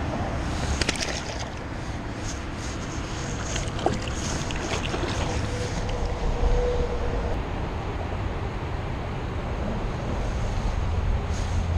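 Wind rumbling on the camera's microphone, with jacket rustling and a few sharp clicks from handling.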